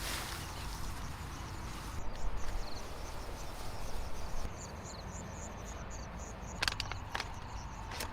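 Forest insect, likely a cricket or similar, chirping in a steady series of high pulses, about three a second, in the second half, over a low steady rumble. A few sharp clicks sound near the end.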